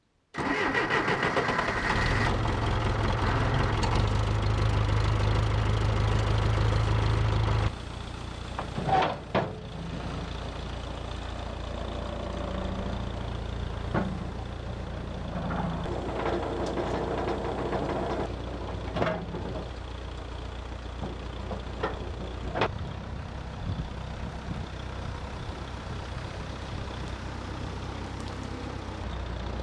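A motor vehicle's engine running, louder for the first several seconds and then dropping to a lower, steady idle about eight seconds in. Scattered sharp clanks and knocks sound over it.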